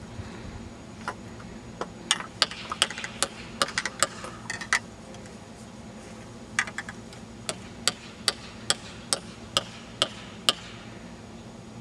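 Sharp clicks and taps of hands working on plastic mortar tubes in a wooden rack. An irregular run of clicks comes first, then a steady series of about eight clicks, roughly two a second, near the end.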